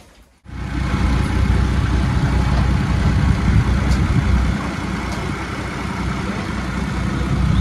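A vehicle engine running steadily, a low rumble that starts abruptly about half a second in.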